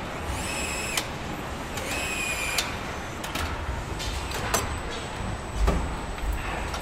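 Car assembly line noise: a steady machinery hum with scattered clanks and knocks, the heaviest a low thump about two-thirds of the way through. Early on, two high tones sound, each under a second long.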